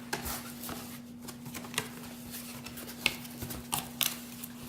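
Cardboard product box being opened and its contents handled: rustling and scraping of flaps and packaging with a few sharp clicks, the sharpest about three seconds in, over a faint steady hum.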